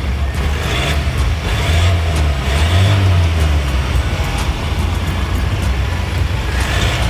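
Ford F-150 pickup's exhaust, with a stainless steel rear section and Akrapovic tips, running with a low rumble that swells a couple of times about two to three seconds in as the engine is revved lightly.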